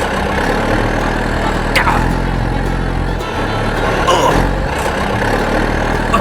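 A steady mechanical running hum, like a motor or engine idling, with brief high squeaks sliding downward near 2 seconds and again near 4 seconds.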